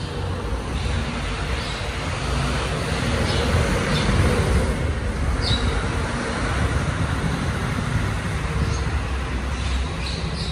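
Diesel engine of a rear-loading refuse compactor truck running with a steady low rumble as the truck pulls away and turns, with a few short high chirps over it.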